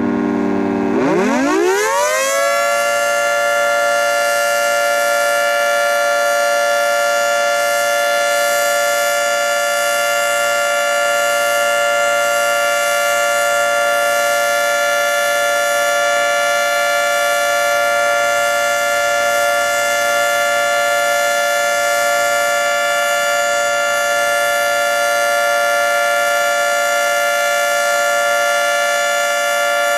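Federal Signal 3T22 three-tone electromechanical siren, its pitch falling to a low point about a second in, then winding up over about two seconds. It then holds a steady, loud chord: the Alert (steady tone) signal.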